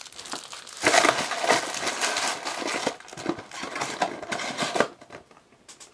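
Cardboard trading-card box and packs being handled: irregular rustling, scraping and light knocks, busiest in the first few seconds and tailing off to a few soft clicks near the end.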